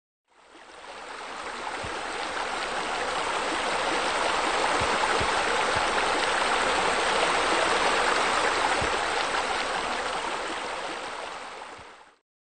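Steady rushing, splashing water. It fades in over the first second and fades out shortly before the end.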